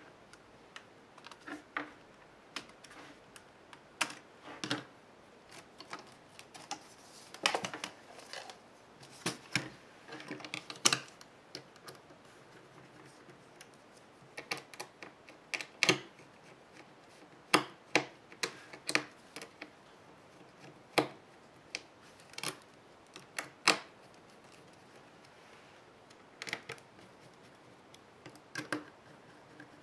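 Irregular sharp clicks, taps and small snaps of plastic and metal laptop parts being handled and worked by hand and with a small screwdriver on an opened ultrabook's top case.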